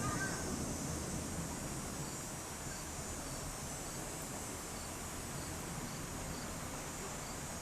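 Steady outdoor insect chorus, crickets trilling high with faint chirps at regular intervals, over a low steady rumble.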